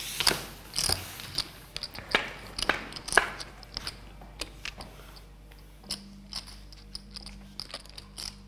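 Poker chips clicking against each other as they are handled and stacked, a quick run of sharp clicks that thins out after about four seconds.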